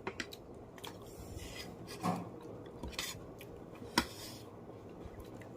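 Light clicks and scrapes of cutlery and dishes during a meal, with one sharp click about four seconds in.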